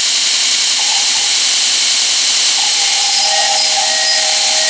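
Belt grinder's 2.2 kW electric motor running on a frequency converter, with a steady high hiss and a whistle. Whistle tones come in a little over halfway through and hold steady. The owner blames the converter for the whistle.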